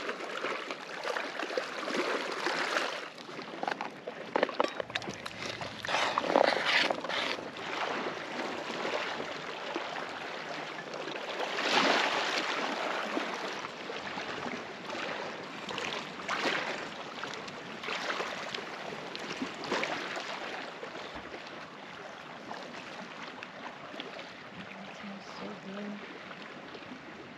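Small lake waves lapping on a pebble shore: a rushing hiss that swells every few seconds.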